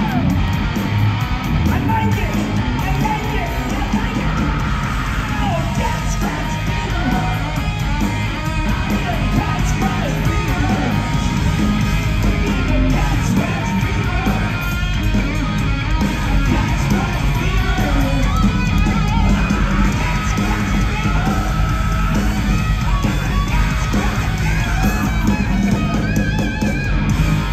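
Live hard rock band playing loudly: overdriven hollow-body electric guitar over drums, heard from within the crowd.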